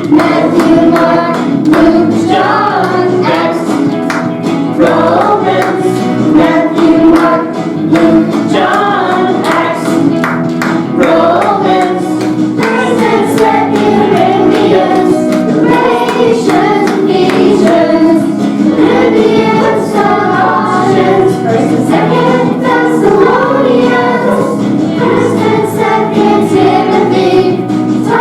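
Choir singing a song with instrumental backing and a steady beat: a children's Bible song naming the books of the Bible.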